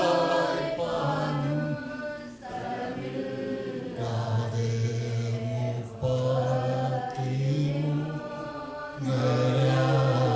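A man singing a slow old Malayalam Christian hymn in long drawn-out phrases, each line stretched over a couple of seconds.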